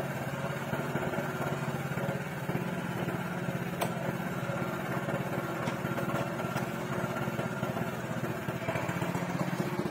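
Small single-cylinder four-stroke petrol engine of a walk-behind power tiller idling steadily on the spot, not under load.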